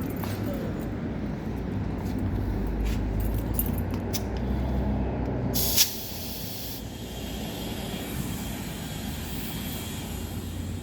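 Steady low mechanical rumble of a car workshop. About six seconds in, a sudden short blast of compressed air hisses, and a lighter hiss continues after it.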